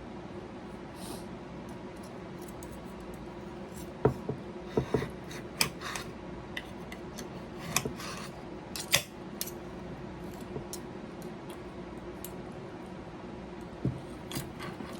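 Cutlery clinking against a plate in scattered sharp strikes, mostly between about four and nine seconds in and again near the end, over a steady low hum.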